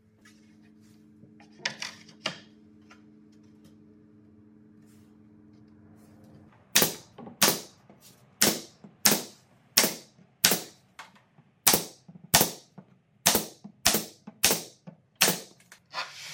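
Pneumatic nail gun firing about fourteen times in a steady rhythm, roughly one and a half shots a second, driving nails into plywood. The shots start about six and a half seconds in, each a sharp crack.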